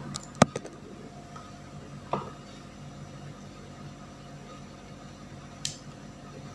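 Snap-off cutter (utility knife) being worked on a LAN cable's outer jacket to strip it: a quick run of sharp clicks at the start, a single click about two seconds in, and a short scrape near the end.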